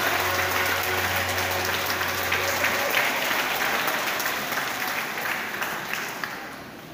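Audience applauding at the end of a song, fading out near the end. Under the clapping, a low steady electric keyboard note is held for about the first three seconds and then stops.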